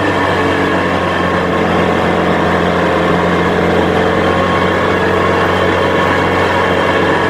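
SEAT Ibiza Kitcar rally car's four-cylinder engine running steadily at low, constant revs, heard from inside the stripped cabin.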